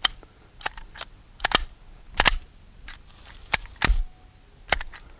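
Metal clicks and clacks of an H&K VP70Z pistol's slide being worked by hand, about a dozen sharp clicks at uneven intervals. The slide is being worked to clear a fired case that failed to extract and stays stuck in the chamber.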